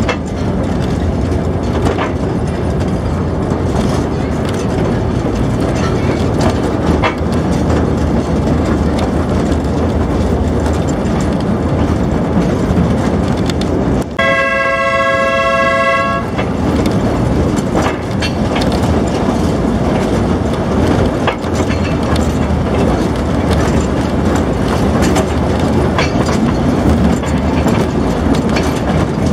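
Narrow-gauge train heard from aboard a coach: steady running noise with a few rail clicks. About halfway through the running noise drops out for a moment and the train sounds its horn, a steady chord lasting about two seconds, before the running noise comes back.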